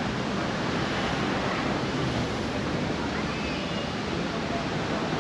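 Steady rushing city street ambience, an even wash of noise with no single event standing out.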